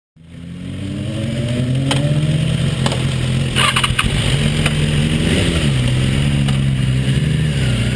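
BMW S1000RR inline-four motorcycle engine running steadily at low revs, with a brief dip and rise in pitch about five seconds in. A few sharp clicks come between two and four seconds in.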